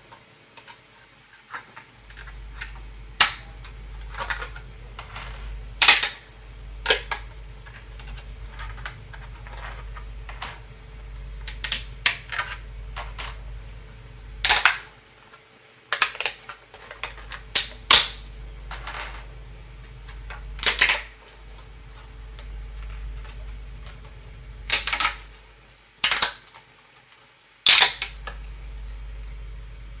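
Sharp, irregular snaps and clicks of 3D-printed PLA pieces being broken off their print rafts, every second or two, over a low steady hum.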